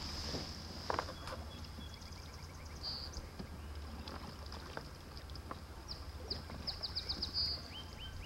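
Small birds chirping from the riverbank, with several quick runs of short falling chirps, over a low steady hum; a light knock about a second in.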